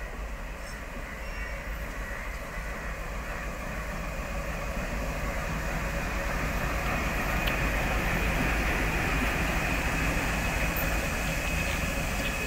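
Two WDM-3A ALCo diesel-electric locomotives running under power as they haul a passenger train past, getting steadily louder over the first several seconds as they draw close. A steady high whine comes in about halfway and holds to the end.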